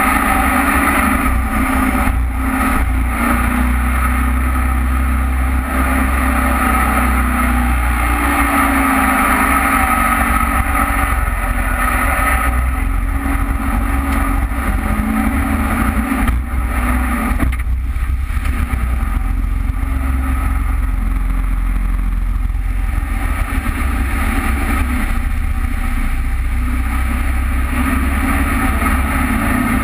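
Jet boat engine running hard at speed, its pitch rising and falling as the boat works through shallow rapids, over rushing water.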